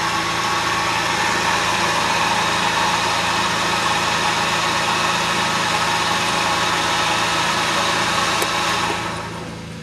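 Electric motor driving a VW Beetle manual transmission in first gear with the wheels off the ground, a steady whir with gear noise as the axle spins; it quiets sharply about nine seconds in.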